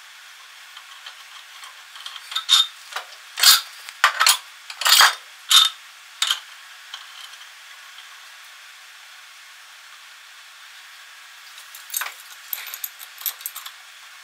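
Metal clanks and clinks from the parts of a Harbor Freight 61179 mini tire changer being handled and fitted: a burst of sharp knocks and short scrapes from about two to six seconds in as the red clamping cone is set on the threaded center post, then a lighter run of clicks near the end as the bead breaker arm goes on.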